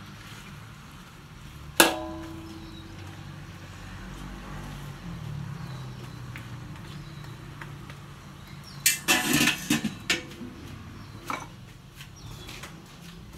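Metal spatula striking an aluminium wok while stirring meat, with one sharp ringing clank about two seconds in. Later comes a burst of metallic clatter as a stainless steel lid is set onto the wok.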